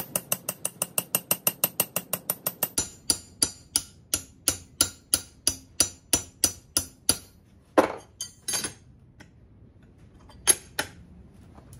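Carbide-ball straightening hammer tapping a hardened steel knife blade on a small anvil, peening it warp side up to straighten a heat-treat warp. It starts with fast light taps, about six a second, slows to about three strikes a second, and stops about seven seconds in. A few louder, scattered knocks follow.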